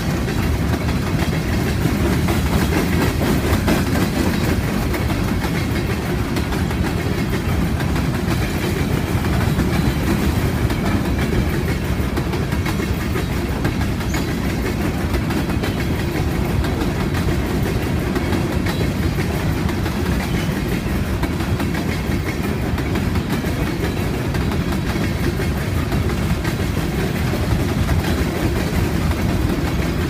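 Empty open-top coal hopper cars rolling past on steel wheels: a steady, loud rumble of wheels on rail, with clicking as the wheels cross rail joints.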